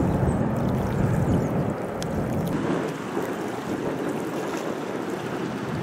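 Wind buffeting the microphone in a steady low rush, with a few faint high bird chirps near the start.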